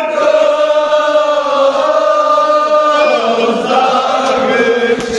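A group of men chanting a Kashmiri marsiya, a Shia mourning elegy, together in long, drawn-out notes, shifting to a lower note about three seconds in.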